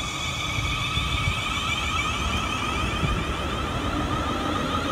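South Western Railway electric multiple unit running past the platform: a steady, several-toned traction-motor whine that falls slightly in pitch, over the low rumble of wheels on the rails.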